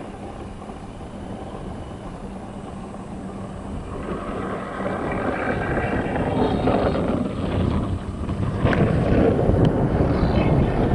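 Iceboat's steel runners running over lake ice, getting louder as the boat sails up and passes close, with wind noise on the microphone. Two sharp knocks come about nine seconds in.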